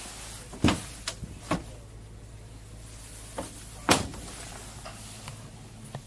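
Wooden wardrobe or cabinet doors knocking and clicking as they are opened and shut: about half a dozen sharp knocks, the loudest about a second in and again near the four-second mark, over a low steady hum.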